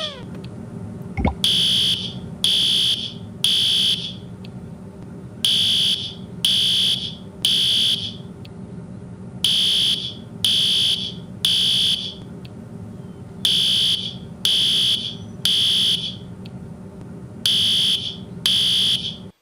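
Home fire alarm sounding in the three-beep evacuation pattern: three high-pitched beeps about a second apart, a pause, then three more, repeating every four seconds.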